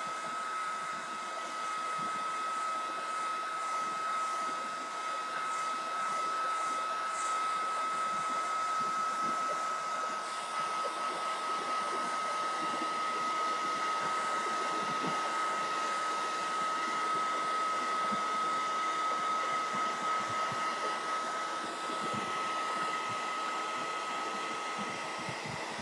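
Handheld hot-air dryer blowing steadily, a rush of air with a steady high whine, drying freshly applied chalk ink on a terry cloth bib.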